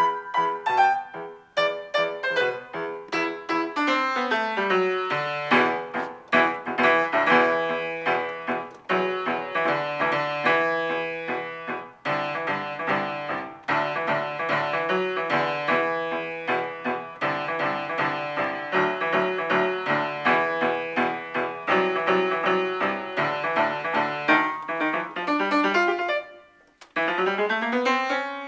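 Piano improvisation: a falling run of notes opens into a long stretch of dense, fast notes and chords. Near the end the playing breaks off briefly, then a rising run begins.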